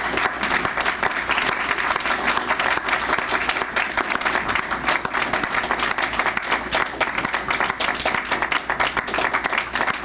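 A roomful of people applauding at length, many hands clapping at once in a dense, even patter: a standing ovation.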